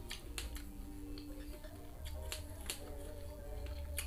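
Close-up crunching and chewing of crisp raw kedongdong (ambarella) fruit: a string of sharp crunches with mouth noises in between, over a steady low hum.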